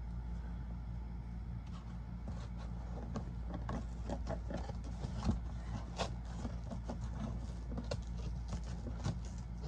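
A shipping box being opened by hand: scattered small clicks, scrapes and rustles at an irregular pace, over a steady low hum.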